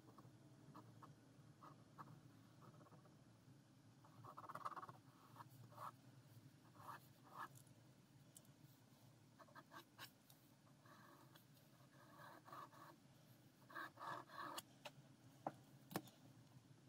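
Ballpoint pen drawing on paper: faint, short scratchy strokes in groups, with a few sharp ticks in the last couple of seconds.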